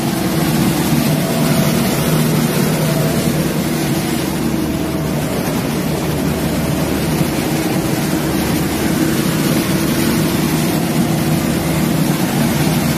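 Combine harvester running steadily while cutting paddy, heard from the driver's seat: a loud, even drone of engine and threshing machinery.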